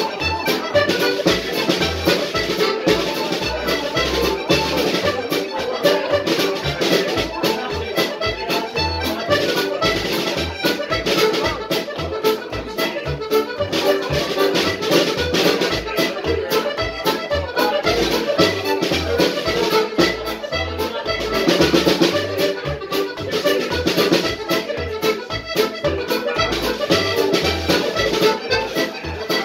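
Piano accordion playing a quick Scottish pipe tune: a fast, unbroken melody over a steady pulsing bass.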